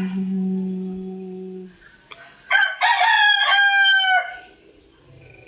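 A steady low hum, which the uploader takes for a strange sound from the sky, stops a little under two seconds in. About a second later a rooster crows once, loudly, its last note slightly falling.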